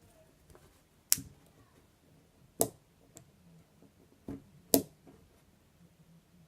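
Sharp metal clicks from a Gerber Suspension multi-tool as its blades are folded and opened: three loud clicks about a second and a half apart, with a couple of fainter ones between.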